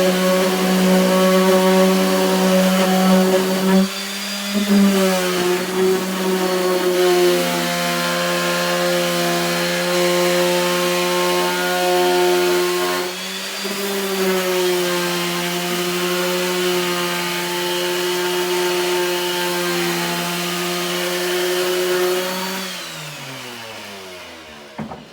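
Makita electric orbital sander running with a steady motor hum. Its pitch dips briefly about four seconds and thirteen seconds in. Near the end it is switched off and the pitch falls as the motor winds down.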